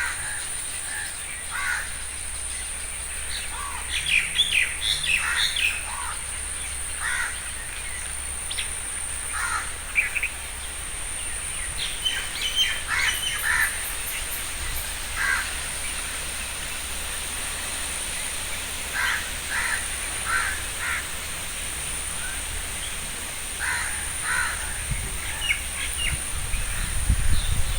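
Several birds calling in short, scattered calls, with crow-like caws among them. A low rumble builds near the end.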